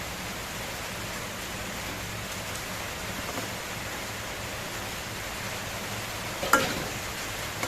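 Eggs frying in hot oil in a pan: a steady sizzle, with one sharp click about six and a half seconds in.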